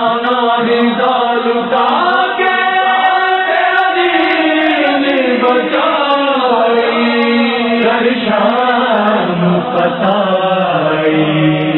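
Wordless vocal chanting in long, slowly gliding notes, the sung intro of a noha (Shia lament).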